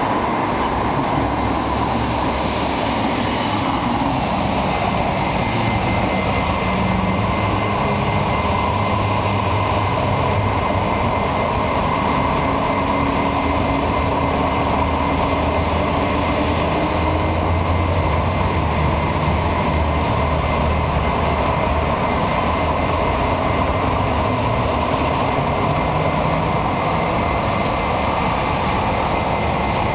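Steady city street traffic from a busy intersection: cars, a coach and trams running past, with an electric street tram coming through near the end.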